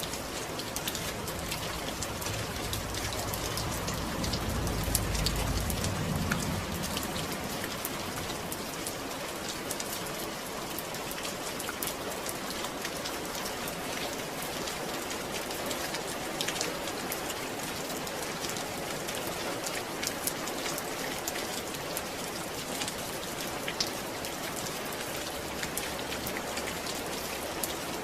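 Steady rain falling, an even hiss dotted with the ticks of individual drops. A low rumble swells and fades about four to six seconds in.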